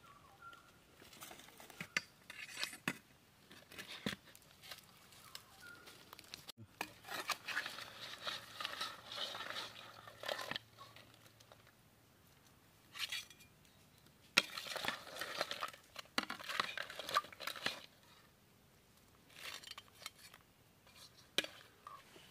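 Metal serving spoon scraping and clinking against a kadai as crab curry is lifted out, in scattered short bouts of scraping with single clicks between them.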